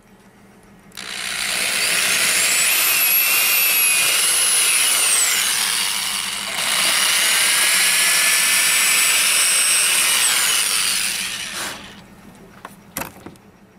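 Electric drill with a 5/16-inch bit boring vent holes through the wall of a styrofoam cooler: two runs of about five seconds each with a short break between. Each run has a motor whine that rises as the drill spins up and drops as it stops, over the noise of the bit cutting the foam. A few sharp clicks follow near the end.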